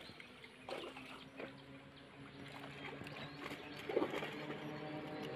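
Water sloshing and splashing as a seine net is hauled through shallow pond water, with a few sharp splashes. A steady motor hum grows louder from about halfway through.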